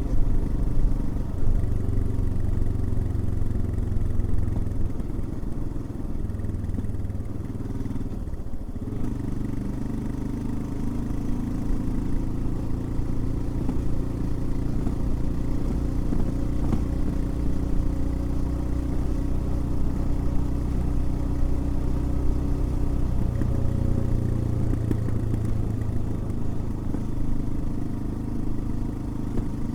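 Royal Enfield Himalayan's single-cylinder engine running as the motorcycle is ridden. Its note dips briefly about eight seconds in, then carries on steadily with another change in pitch near the end.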